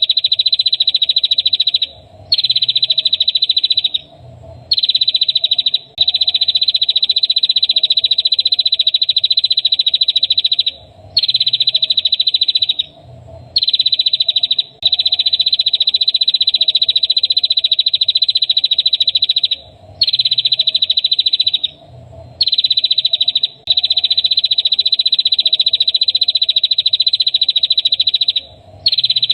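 Masteran songbird-training recording: a high, buzzing animal trill repeated in long unbroken phrases, some over five seconds, separated by brief pauses. A faint steady lower hum runs underneath.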